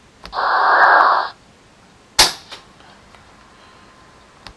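Slideshow transition sound effects: a hissing burst about a second long, then a sharp crack about two seconds in with a fainter click just after.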